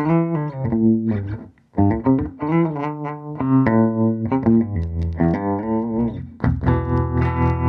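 Electric guitar played through a Fender Princeton tube amp with a 10-inch speaker: a run of single picked notes, then a strummed chord held and ringing from about six and a half seconds in.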